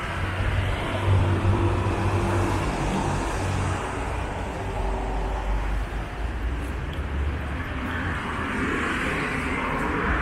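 Steady city street traffic: cars passing with a low engine rumble and tyre noise.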